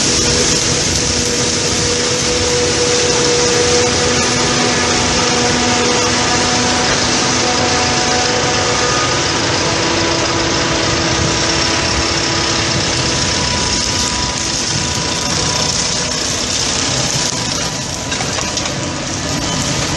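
Diesel engines of farm machinery running steadily during maize silage harvesting, a constant drone with a strong hiss over it.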